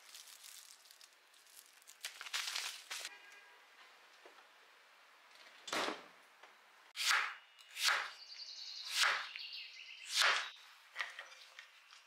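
Plastic food packaging rustling at the refrigerator, then the refrigerator door thudding shut about six seconds in, followed by four sharp swishes about a second apart.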